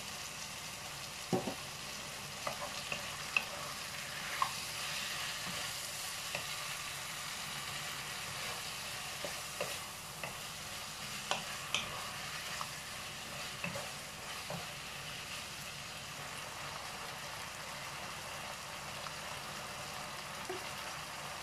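Pork, tomato and onion sizzling steadily in a non-stick wok as they are stir-fried, with scattered sharp clicks and scrapes of a spoon and a wooden spatula against the pan.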